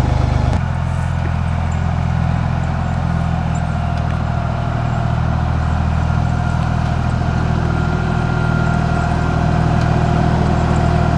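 Small Ford tractor's engine running steadily, with a slight change in its note about half a second in.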